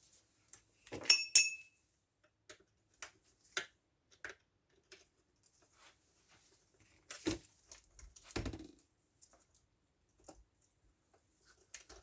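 Metal tools and chainsaw parts being handled: a sharp metallic clink with a brief ring about a second in, scattered small clicks, and two duller knocks later on.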